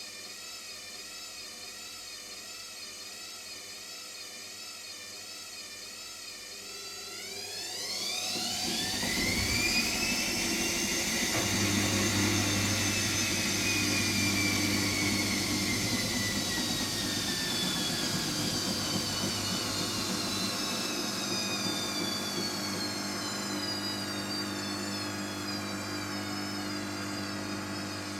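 Hotpoint Extra WMXTF742K washing machine running with a steady whir, then about seven seconds in its motor speeds the drum up: a whine rises sharply in pitch and grows louder, a steady low hum joins it, and the whine then slowly sinks in pitch while the machine keeps running.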